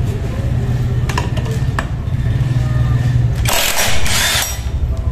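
Cordless impact wrench hammering for about a second, about three and a half seconds in, breaking loose the 22 mm drive pulley nut on a Honda Click 125i scooter's CVT. A steady low hum runs under it.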